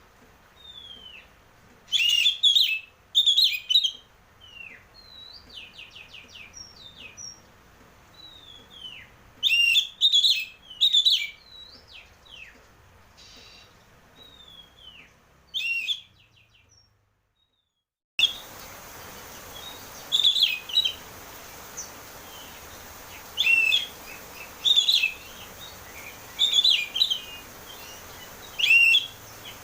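Oriental magpie-robin singing in loud, open phrases of whistles and rapid notes, with softer falling whistles between them. The sound cuts out completely for about two seconds around the middle, then the song resumes over a steady hiss.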